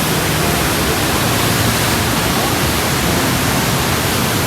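Rhine Falls, a large river waterfall, pouring: a steady, loud, even rush of falling water.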